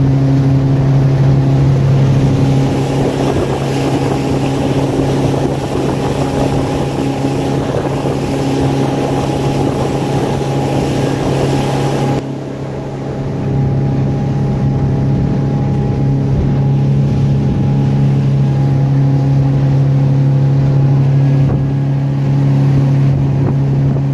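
Motorboat engine running at a steady pitch while the boat is underway, with wind and water rushing over it; about halfway through the rushing falls away and the engine hum carries on.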